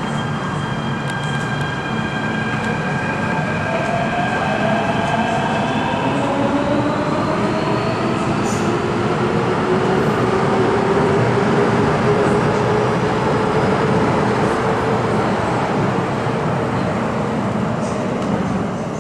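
MTR K-Train electric multiple unit pulling away and gathering speed. Its traction whine climbs in pitch over the first several seconds, over a steady rumble of wheels on rail.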